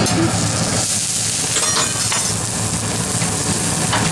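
Food sizzling on a hot hibachi steel griddle: a steady frying hiss, over a steady low hum, with a few light clicks.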